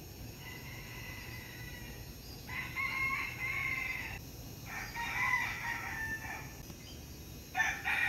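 Roosters crowing in turn before dawn: a faint distant crow first, then three louder crows of about two seconds each, the last one running on past the end.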